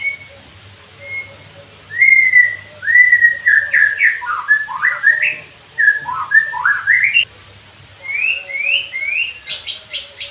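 White-rumped shama singing: loud clear whistled phrases of notes that glide up and down, followed near the end by a quick run of short rising notes.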